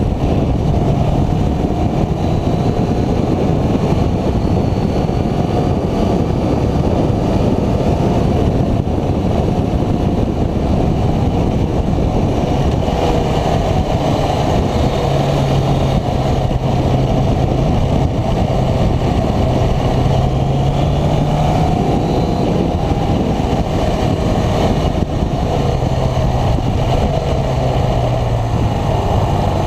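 Motorcycle engine running at road speed along a winding road, its pitch rising and falling with the throttle, under a heavy rumble of wind on the microphone.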